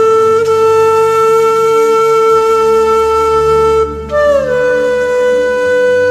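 Background music: a wind instrument plays a slow melody of long held notes over a soft low drone. One note holds for about four seconds, then a slightly higher note comes in and slides gently down.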